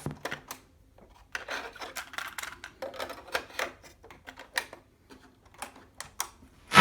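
Irregular clicks and short rubbing sounds of a cassette boombox being handled, its keys and controls worked between two stretches of music playback.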